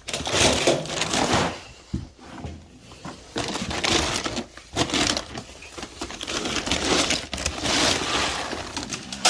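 Dry chicken feed, pellets and scratch grains, being scooped and poured into a bucket: a rustling, rattling pour of grains in several long stretches with short pauses between.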